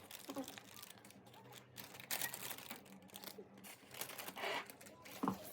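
Irregular light clicks and clatter of tableware being handled.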